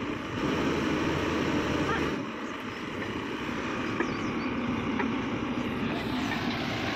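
Excavator engine running steadily, louder for the first couple of seconds and then settling, with a few faint metallic clicks.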